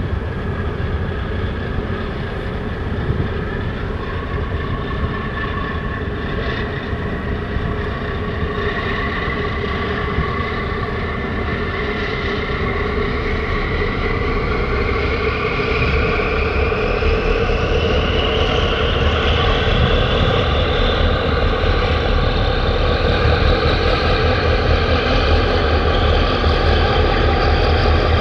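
A boat's diesel engine running with a low rumble and a whining note; from about halfway through the whine climbs steadily in pitch and the sound grows louder as the engine speeds up.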